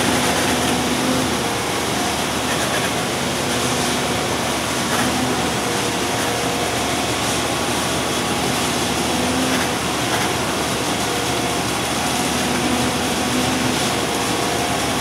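Heavy diesel engine of a concrete pump truck running steadily during a raft foundation pour, a continuous loud machine noise with a faint hum that comes and goes.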